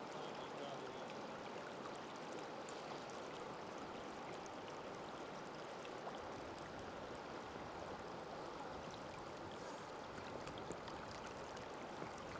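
Creek water flowing steadily, an even rushing noise with no pauses.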